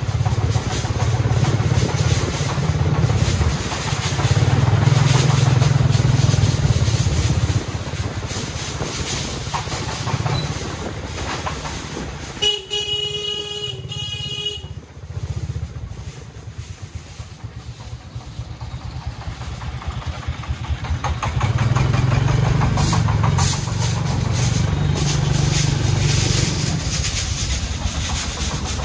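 Engine of a three-wheeled công nông farm truck chugging as it hauls steel rebar, loudest in the first seven seconds and again later on. About halfway through, a vehicle horn sounds once, steadily, for about two seconds.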